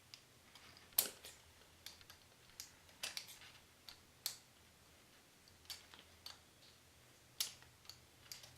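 Faint, irregular clicks and scratches, about a dozen, from small tools working at a soldering gun's tip as dirt is picked off it.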